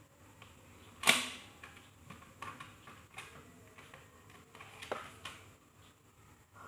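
Hard plastic blister packaging being opened: one sharp plastic snap about a second in, then a few smaller clicks and crackles as the USB LED gooseneck lamp is taken out and handled.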